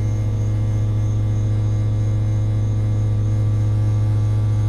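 2011 Goodman 2.5-ton package unit running, with a steady low hum.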